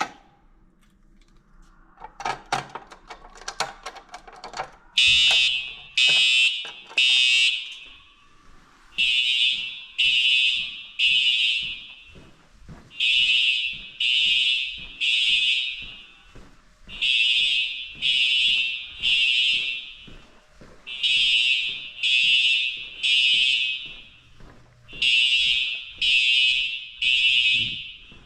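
A fire alarm goes off about five seconds in, after a few faint clicks. It sounds a loud, high evacuation tone in the temporal-three pattern: three half-second beeps, then a pause, the cycle repeating every four seconds.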